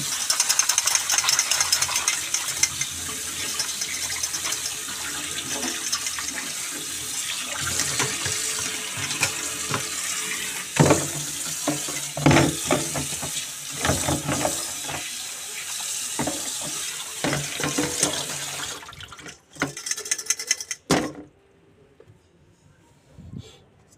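Tap water running into a stainless steel mesh strainer of dried herbs in a steel sink, with a steady hiss and splashing as hands turn the herbs and a few knocks along the way. The water is shut off about four-fifths of the way in, leaving a couple of light clicks.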